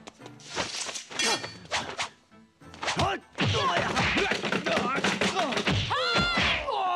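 Kung fu film fight sound effects: a quick run of sharp punch and kick hits with cloth whooshes, then from about three and a half seconds in a dense flurry of blows over music, with rising and falling cries near the end.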